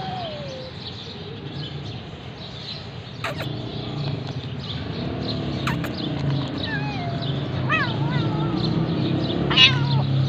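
Kittens meowing: several short calls that slide in pitch, the loudest near the end, over a steady low hum, with a couple of sharp clicks.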